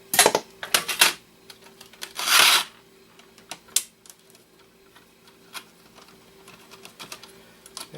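Clicks and clatter of a small circuit board and console parts being handled and turned over, with a short scraping rasp about two seconds in.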